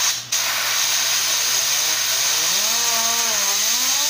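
Compressed air hissing loudly and steadily as an air tool spins a turbocharger turbine shaft, with a short cut-out just after the start. About two seconds in, a whine from the spinning tool comes in and rises, dips and rises again in pitch while a rag with metal polish is pressed against the shaft.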